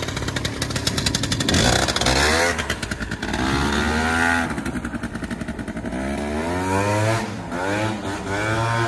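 Piaggio Zip scooter running a swapped-in 125cc Piaggio Runner engine, pulling away and accelerating, its engine note rising and falling several times as the throttle is worked.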